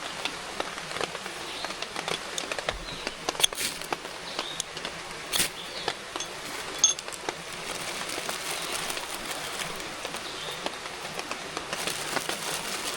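Steady hiss of light rain and running creek water, with scattered sharp clicks and taps, a few louder ones around the middle.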